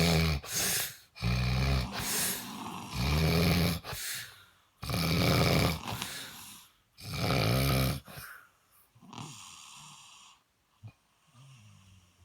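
A sleeper snoring: five loud snores about every one and a half to two seconds, each lasting about a second, then softer, quieter breaths in the last few seconds.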